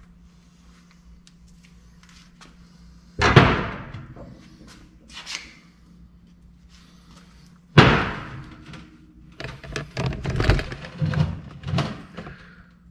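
Metal clanks of the removed lower control arm and hand tools being set down and shifted on a steel diamond-plate lift deck: two single loud clanks with a short ring, about three and eight seconds in, then a run of smaller knocks and clatter near the end.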